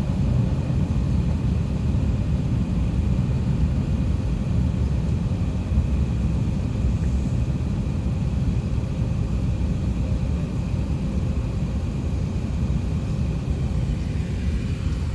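Steady low rumble of cabin noise aboard an Airbus A380-800, with a thin steady hum above it and no rise in engine pitch.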